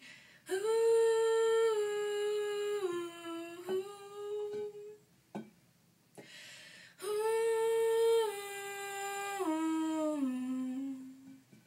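A woman humming a wordless melody without accompaniment: two long phrases, each stepping down in pitch, with a breath between them. The voice carries the echo of a small bathroom.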